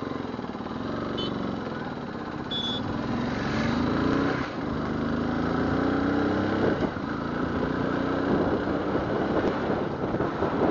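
Motorcycle engine pulling through the gears, its pitch rising and dropping back several times, heard from a helmet-mounted camera with wind and road noise over the microphone.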